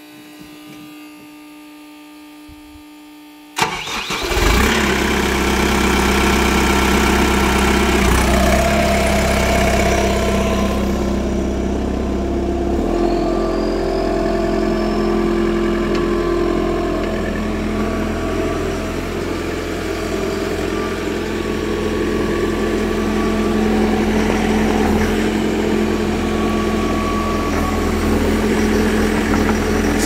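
A steady electrical hum, then the diesel engine of a Mecalac 6MCR compact excavator cranks and catches suddenly about three and a half seconds in. It runs on loud and steady, settling to an even idle a few seconds later.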